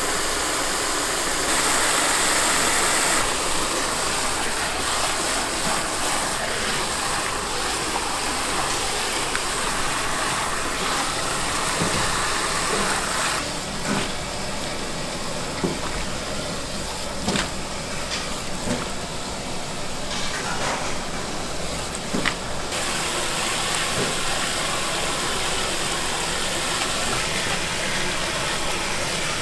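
Tap water running from a spray faucet onto chopped napa cabbage in a plastic tub, with wet splashing and scattered soft knocks as the cabbage is tossed and handled in a plastic colander.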